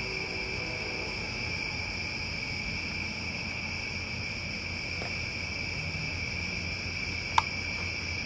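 Steady chorus of crickets trilling, one unbroken high-pitched drone, over a low hum. There is a single sharp click about seven seconds in.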